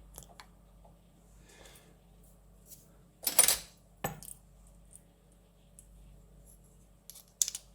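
Small metal lock parts and tools clinking and clicking against each other and the bench as they are handled, with the sharpest clinks a little past three seconds in and again near the end.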